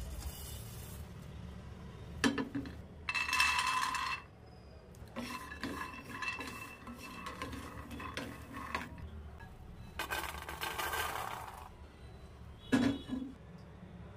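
Peanuts and seeds being stirred and scraped around a nonstick pan with a wooden spatula, in rattling spells, with two sharp knocks.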